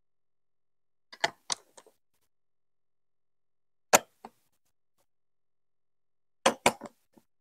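Large plastic Duplo-style building blocks clicking and knocking as they are pressed onto each other and onto the studded baseplate, in three short groups of clicks: about a second in, at about four seconds and near the end.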